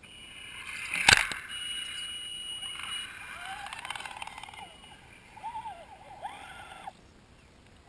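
Electric motor and gear whine of a radio-controlled rock crawler driving close by on a dirt trail, rising and falling in pitch several times with the throttle, then cutting off near the end. A sharp knock about a second in is the loudest sound.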